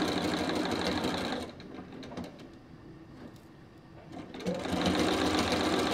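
Bernina sewing machine stitching a seam at speed, stopping about a second and a half in for a few seconds, then starting up and stitching again near the end.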